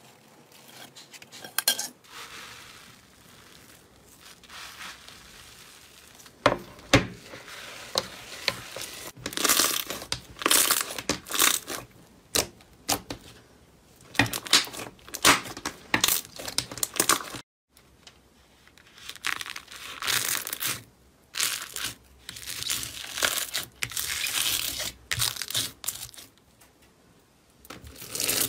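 Hands squishing, stretching and pressing slime, giving crackling, crinkling sounds in uneven bursts. It drops out to silence briefly about two-thirds of the way through, then the crackling resumes.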